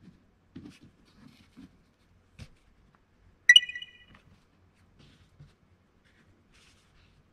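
Light taps and rustles of cut styrene board pieces being handled and slid on a cutting mat, with a single knock. About halfway through comes the loudest sound: a short, bright, high ringing chime of several tones that pulses a few times and fades quickly.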